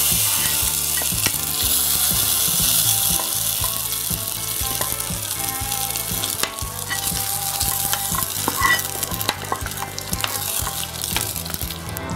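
A hot coconut-oil tempering of mustard seeds, fried coconut, dried red chillies and curry leaves sizzling on top of a curry, loudest in the first few seconds and then settling to a softer sizzle with scattered crackles.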